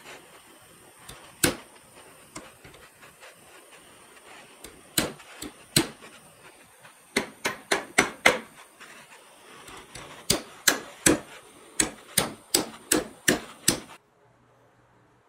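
Claw hammer striking a steel rod clamped in a bench vise: about twenty sharp metallic blows, a few spaced ones at first, then quick runs of several blows each, stopping suddenly about fourteen seconds in.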